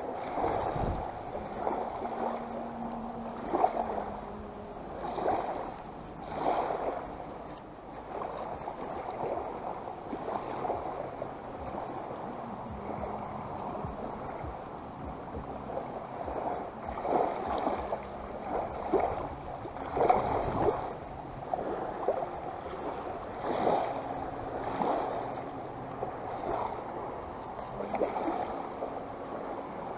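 Small waves lapping and splashing gently at the shoreline in irregular soft surges every second or two.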